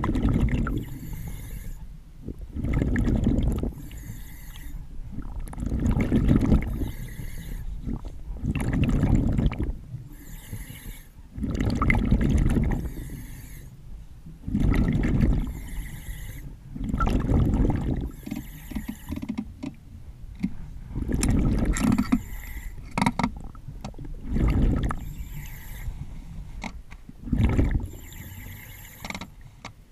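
A diver breathing through underwater breathing gear: a breath about every three seconds, each a loud rush of gas and exhaled bubbles, rising and falling rhythmically.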